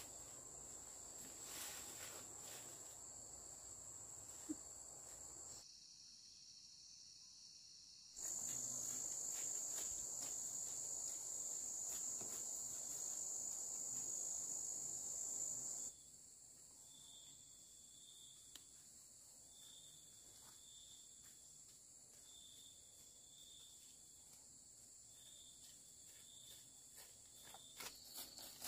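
Insects trilling steadily at a high pitch, louder for a stretch in the middle. In the second half a second insect chirps in short, evenly spaced pulses.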